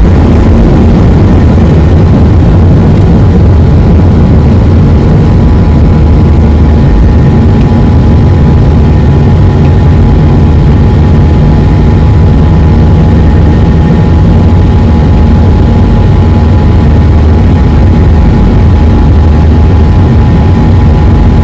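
Jet airliner engines at takeoff thrust heard from inside the cabin during lift-off and climb-out: a loud, steady roar with a deep rumble and a few steady whining tones.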